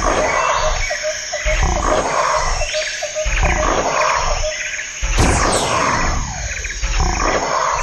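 An animal roaring and growling in loud bursts that repeat a little more often than once a second, with a few falling sweeps about two-thirds of the way through.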